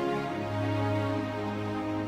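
Music with long held notes, a deep bass note coming in just after the start.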